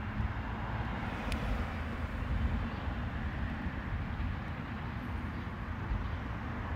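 Steady outdoor background noise: a low, even rumble with no distinct events.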